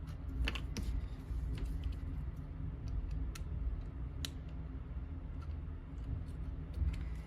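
Scattered light clicks and taps as paper and board craft pieces are handled and glued together, over a steady low hum.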